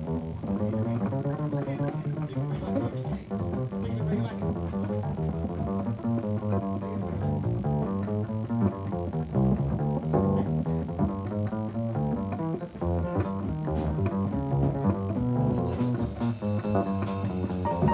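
Unaccompanied upright double bass solo, plucked pizzicato in quick runs of notes. Sharp taps join in near the end.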